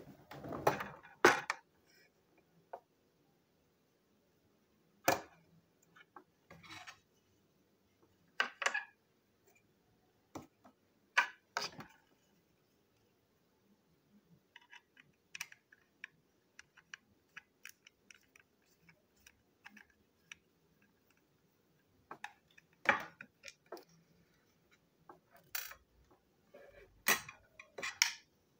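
Clicks and knocks of a plastic toy train's parts and small metal screws being handled and set down on a table. Midway there is a run of light, quick ticks as a small screwdriver works the screws in the green plastic body shell.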